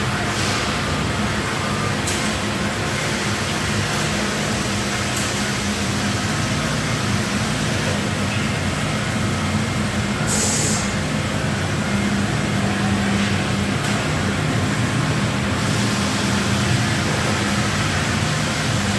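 Amada LCV-3015 CNC laser cutting system running: a steady machine hum with a few faint ticks and a brief hiss of air about ten seconds in.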